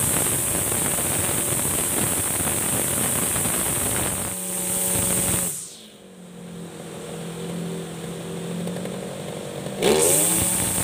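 Backpack brush cutter's 42cc two-stroke engine (type 542RBS) running at high revs. About five and a half seconds in the throttle is let off and it drops to a steady idle. Near the end it is revved up again, its pitch climbing quickly.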